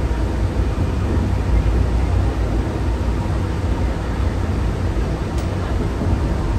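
Steady low rumble and running noise inside a Bombardier Innovia APM 300 automated people mover as it travels on rubber tyres along its concrete guideway.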